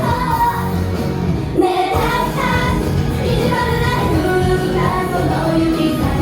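Live J-pop idol performance: a group of young women singing together over a loud amplified backing track, with the bass briefly dropping out about one and a half seconds in.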